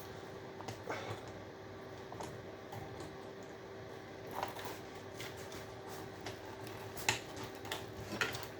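Scattered light clicks and knocks of scrap electrical parts being handled and taken apart, the most distinct about seven and eight seconds in, over a faint steady hum.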